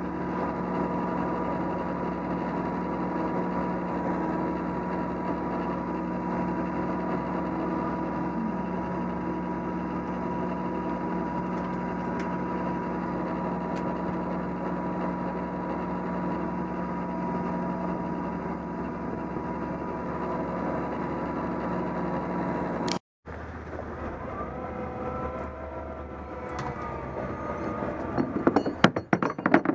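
Boat engine running steadily while underway. After a brief dropout about three-quarters of the way through, a quieter engine sound follows, with clattering knocks near the end.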